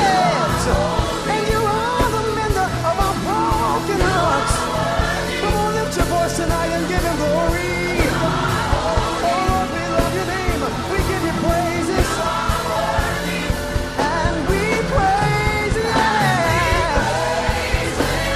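Gospel song playing: a singer's voice bending and sliding over a band with bass and drums.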